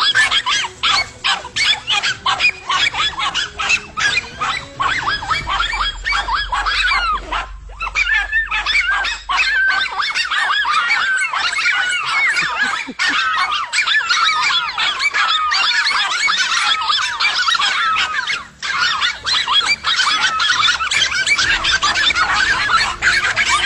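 Dogs barking and yelping rapidly and without pause, many calls overlapping.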